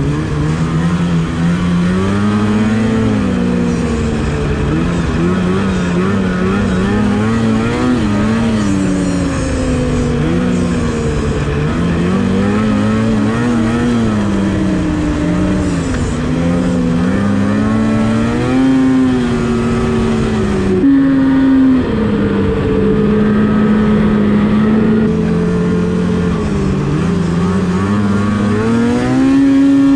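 Polaris Switchback Assault snowmobile's two-stroke engine running under way, its pitch rising and falling repeatedly as the throttle is worked, then climbing to a higher, steady pitch near the end as the sled speeds up.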